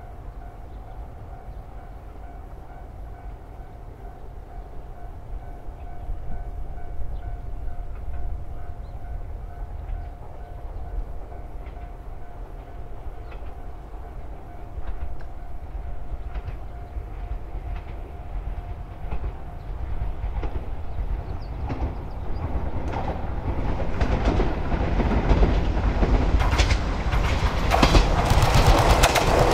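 Electric commuter train approaching, growing steadily louder over the whole stretch. In the last few seconds, as it comes close, its wheels click over the rail joints.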